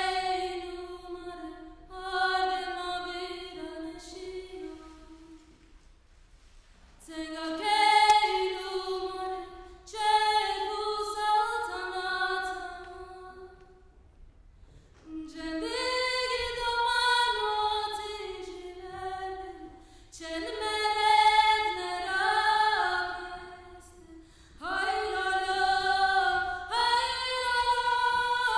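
A woman's voice singing unaccompanied in a Kurdish Alevi song style, in wavering, ornamented phrases a few seconds long separated by brief pauses for breath.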